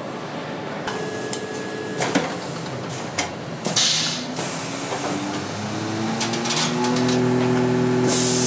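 Automated diesel engine test station running: sharp clanks of tooling and two loud hisses of compressed air, with a machine whine that steps up in pitch and then holds steady as the engine in the rig is driven.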